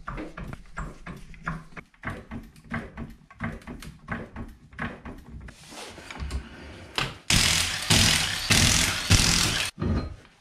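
Ryobi cordless impact wrench hammering wheel lug nuts loose. It is loud and rattling for about two seconds near the end, after a run of light clicks and knocks of the wheel and nuts being handled.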